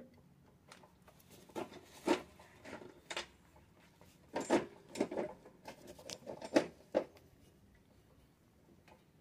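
Hand-handling noise as a Comet APS 41 diaphragm pump is worked loose from its gasoline engine: a run of irregular clunks, knocks and scrapes of the pump body and its fittings, starting about a second and a half in and stopping a couple of seconds before the end.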